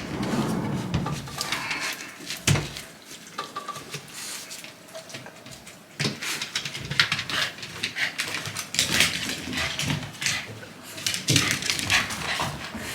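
A Shiba Inu stirring and moving about, with irregular scratchy rustles and clicks.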